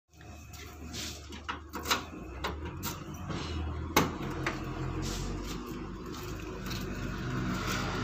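Hino FL 260 JW truck cab door being opened: a few light clicks and knocks, then a sharp latch click about four seconds in, over a low steady hum.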